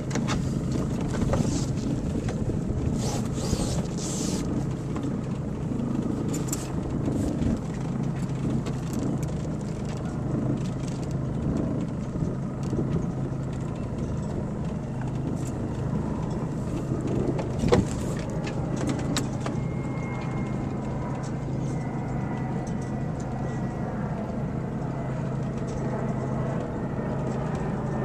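A sailboat's auxiliary engine running with a steady low drone as the boat motors along, with wind and water noise over it. There is a sharp click right at the start and another about 18 seconds in.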